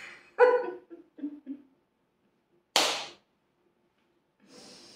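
A small dog gives a single short, sharp bark about three seconds in.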